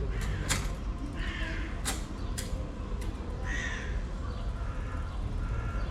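A crow cawing twice, a few seconds apart, with a few sharp clicks in between over steady low outdoor background noise.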